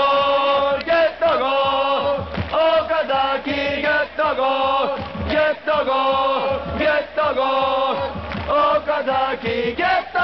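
A large crowd of football supporters singing a player's chant in unison, a loud melody in short repeated phrases with brief breaks between them.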